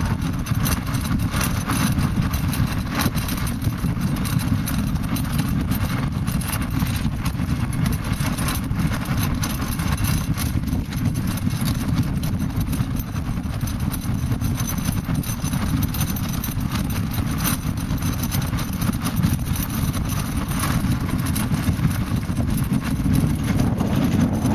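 Wind buffeting the camera microphone: a steady low rumble with a scatter of crackling clicks.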